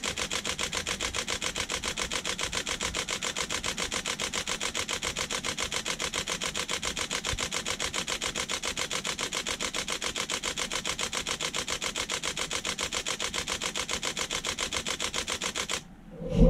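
Nikon D500 DSLR shutter and mirror firing a high-speed continuous burst, about ten clicks a second at an even rate that does not slow: the CFexpress card is keeping up with the writes. The burst stops about a second before the end, followed by a single louder knock.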